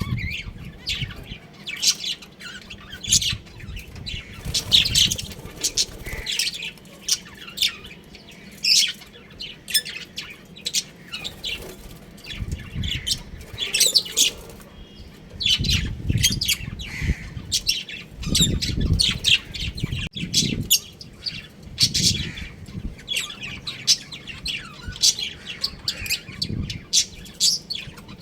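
Budgerigars chirping and chattering, a busy run of short high calls and squawks with no pause, over some low thumping.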